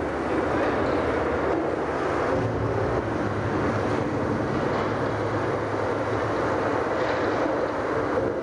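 Loud rushing river water from an immersive exhibit's soundtrack, a steady wash of water noise that swells in the first half second and then holds.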